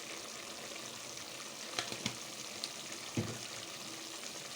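Onion and blended-tomato sauce sizzling steadily in a frying pan while spices are added, with a few light clicks near the middle and a dull knock a little after three seconds.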